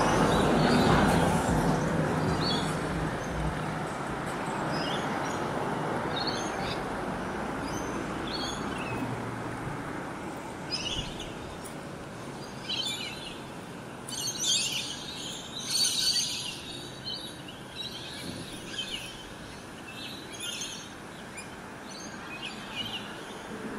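Birds chirping and calling in short, repeated bursts, busiest in the second half, over a steady background hum of traffic that is loudest in the first few seconds and then eases.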